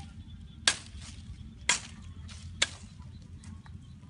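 A long thin wooden stick swung hard into scrub vegetation: three sharp, whip-like strikes about a second apart.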